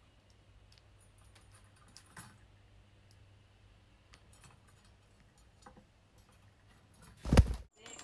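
Budgerigar cracking seed and tapping its beak in a steel feed cup: faint, scattered small clicks. About seven seconds in comes a single loud, brief thump.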